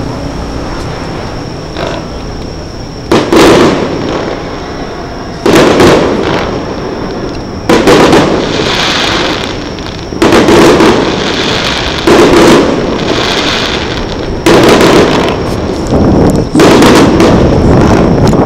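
Aerial firework shells bursting, about seven loud booms roughly two seconds apart starting a few seconds in, each followed by a slowly fading rumbling tail.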